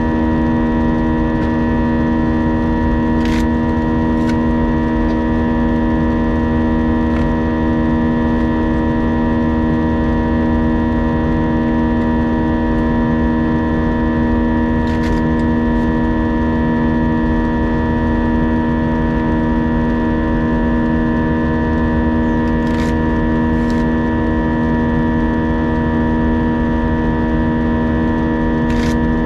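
Airbus A320 engines running steadily as heard inside the cabin: a constant hum made of several steady tones over a low rumble, with a few faint clicks.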